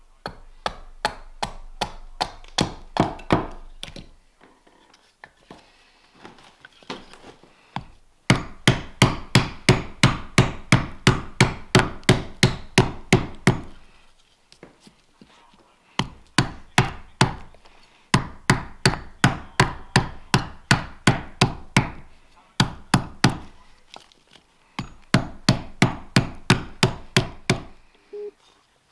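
Carving axe chopping into a green-wood spoon blank held upright on a wooden chopping block: runs of sharp, rapid strikes, about three or four a second, broken by a few short pauses.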